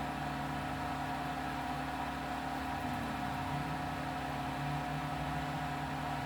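Steady mechanical background hum with a constant mid-pitched whine running underneath, unchanging throughout.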